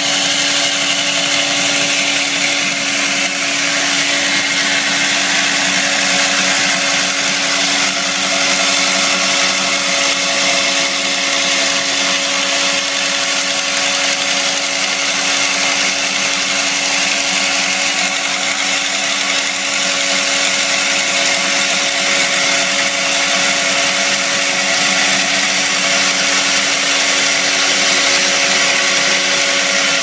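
Hydraulic diamond chainsaw cutting into a stone block: a loud, steady grinding with a constant-pitched whine underneath.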